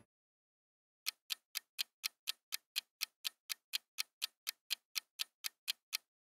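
Clock-style ticking of a countdown timer sound effect: short, even ticks about four times a second, starting about a second in and stopping shortly before the end.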